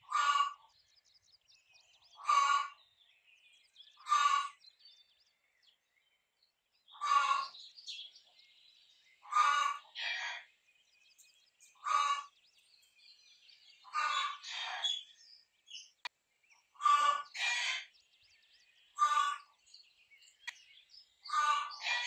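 Rooster giving short, repeated agitated calls, about a dozen of them, one every second or two and sometimes two in quick succession. Faint small-bird chirps sound between the calls.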